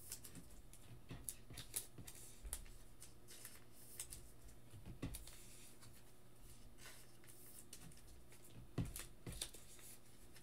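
Baseball trading cards being handled and sorted on a table: faint scattered rustles and soft clicks of cards against each other, with a couple of sharper taps near the end.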